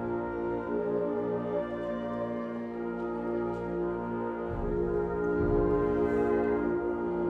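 Wind ensemble holding long sustained chords whose pitches come from the overtone series on B-flat. A low rumble joins about four and a half seconds in, and the sound grows slightly louder.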